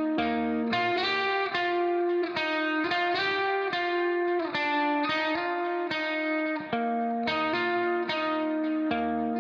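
Instrumental music: a melody of sustained notes changing about twice a second, with no speech.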